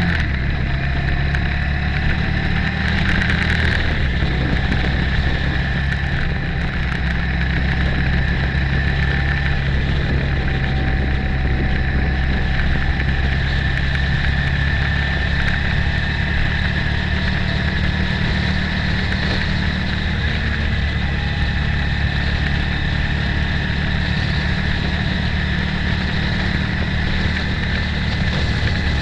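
Motorcycle engine running steadily at an even road speed, heard from on board the moving bike together with wind and road noise.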